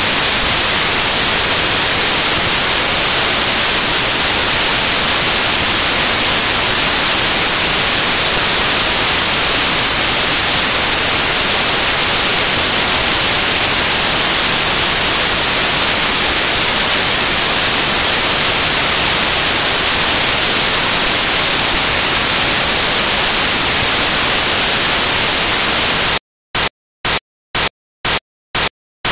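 Loud, steady white-noise static with no other sound in it, the hiss of a broken or empty audio track. About three seconds before the end it starts chopping on and off, a few pulses a second.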